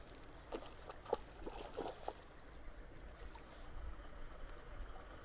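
Quiet pond-bank ambience: wind rumbling low on the microphone, with a few faint short knocks in the first two seconds and a couple of faint high chirps near the end.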